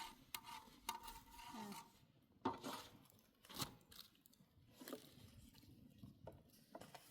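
Faint scattered clicks and light knocks of things being handled, like cookware and utensils, with two louder knocks about two and a half and three and a half seconds in.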